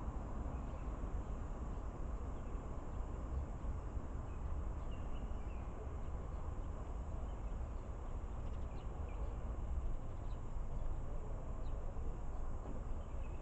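Outdoor ambience: a steady low rumble with a few faint, short high chirps of small birds or insects scattered through it.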